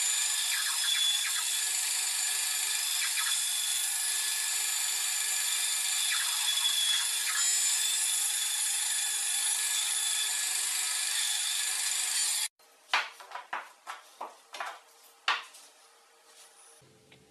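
Band saw cutting through a turned wooden spindle to part off knobs: a steady, high-pitched hiss of the blade in the wood. It cuts off suddenly about twelve seconds in and is followed by a quick run of sharp wood-on-wood knocks, the wooden knobs being set down on a wooden bench.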